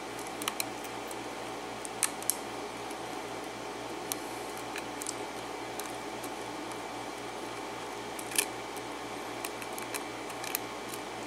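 Faint, irregular metallic clicks and scrapes of a lock pick working the pins of an Arrow pin-tumbler cylinder with a Schlage keyway, held under turning pressure by a tension wrench; the sharpest click comes about eight seconds in. A steady low hum runs underneath.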